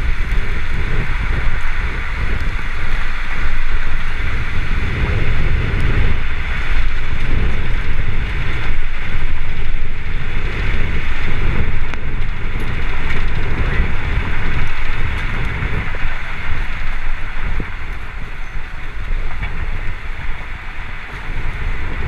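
Strong, gusty storm wind buffeting the microphone near a tornado: an uneven low rumble that swells and eases every second or two over a steady hiss.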